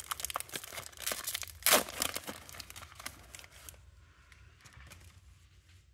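Foil wrapper of a Panini Select trading-card pack crinkling and tearing as it is pulled open by hand, a dense crackle with one louder rip about a second and a half in. The crinkling stops a little before four seconds in.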